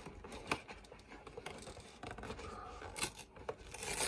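Cardboard advent calendar door being picked open: fingertips and a small tool scratching and scraping at the perforated card, with several sharp ticks, a little louder near the end.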